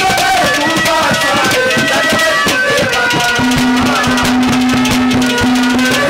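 Live Haryanvi ragni accompaniment: dholak barrel drums beating a dense rhythm under a melody line, with a steady held note coming in a little past the middle.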